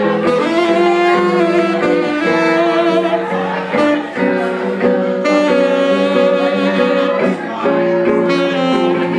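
Live jazz from a saxophone and guitar duo: the saxophone plays a melodic line of held notes over guitar accompaniment, with brief breaths between phrases.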